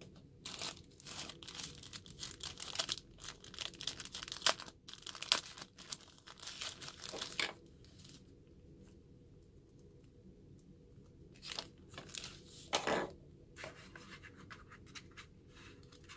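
Thin plastic packaging crinkling and tearing under handling: dense crackly rustling for the first seven seconds or so, then a few short bursts about twelve to thirteen seconds in.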